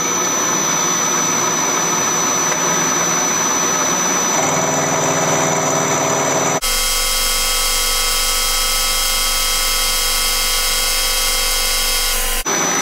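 Vertical milling machine running, its end mill cutting along the edge of a strip of spring steel to narrow it: a steady machine whine with a high ringing tone. About two-thirds in, the mix of tones changes abruptly to a different steady pattern.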